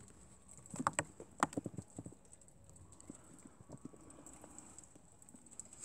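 Light taps and scrapes of young German lop rabbits' paws on a hard plastic tub as they shift about, a cluster of clicks in the first two seconds, then only faint scattered ticks.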